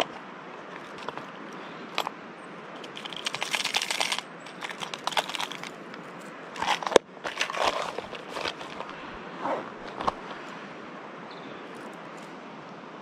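Rustling and crinkling handling noises with scattered sharp clicks, in clusters through the first two thirds, over a steady rushing hiss.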